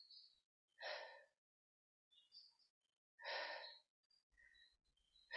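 A woman breathing slowly and softly, three long breaths about two and a half seconds apart, with near silence in between.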